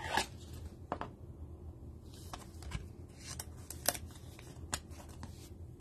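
Light plastic rustling and a series of small, irregular clicks as a trading card in a soft penny sleeve is handled and slid into a rigid plastic toploader.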